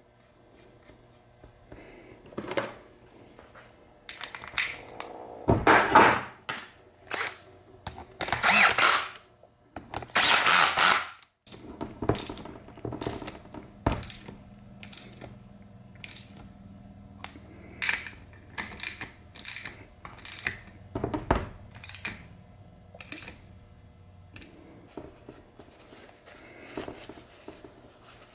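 A ratchet wrench and its plugs working on a Borg-Warner T5 transmission's aluminium case as the fill and drain plugs are threaded in and tightened: a string of clicks, clinks and knocks, with a few longer, louder rasps of ratcheting around six, nine and eleven seconds in.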